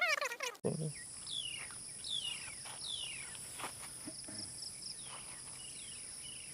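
Wild forest ambience: insects trilling steadily and high, with a bird giving a run of short descending whistled calls. A voice is heard briefly at the start before a cut.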